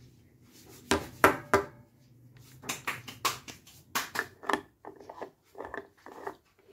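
A spoon clinking and scraping against a small cosmetic jar as cream is packed into it, a series of light, irregular clicks, followed near the end by the jar's lid being fitted on.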